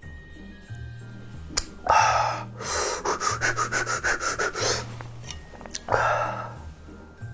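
A man exhales hard through his mouth, then pants in quick short breaths, about seven a second for two seconds, and exhales hard again: a reaction to the burn of a swallow of strong liquor. Background music with a steady low beat plays under it.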